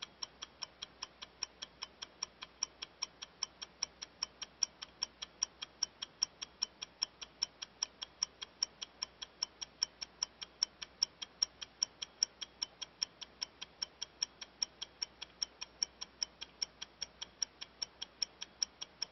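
Rapid, even ticking, about four short sharp ticks a second, with no break.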